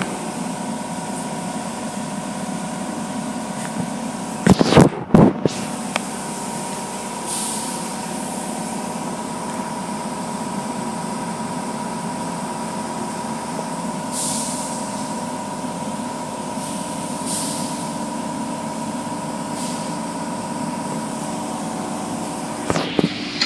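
Automatic car wash machinery running: a steady hum with a high whine, several short hissing blasts of spray or air, and a quick run of loud knocks about five seconds in.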